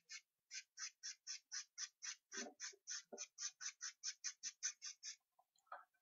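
Charcoal scratching on paper in quick, short, repeated strokes, about four or five a second, with a couple of soft knocks against the drawing board; the strokes stop about a second before the end.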